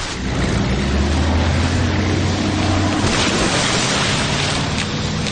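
Speedboat engine droning low and steady over rushing water and spray, its deepest note fading about three seconds in.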